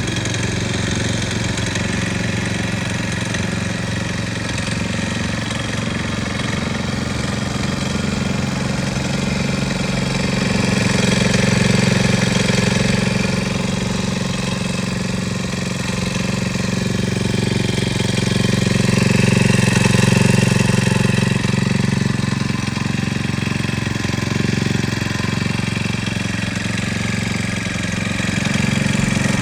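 Small petrol engine of a MEIWA RT-50R tamping rammer running steadily at idle, without the thuds of tamping; it grows a little louder twice.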